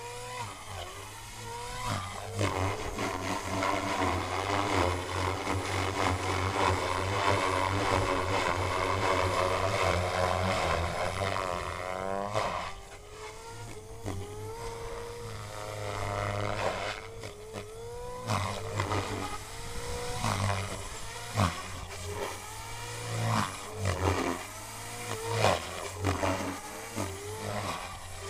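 Electric MSH Mini Protos RC helicopter flying aerobatics: the motor and rotor whine rises and falls in pitch as the load changes. The first half is a long, loud, steady stretch; the second half is quieter, with quick repeated swoops.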